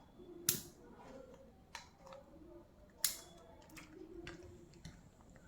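A few sharp plastic clicks and light handling noises as a small action camera is taken out of its box packaging, the loudest click about three seconds in.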